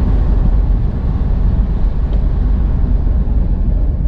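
A car on the move, heard as steady road noise: a low rumble with hiss over it.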